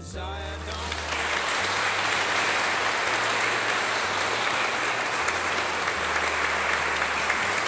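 Wedding guests applauding: dense, steady clapping from a large group that builds up over the first second.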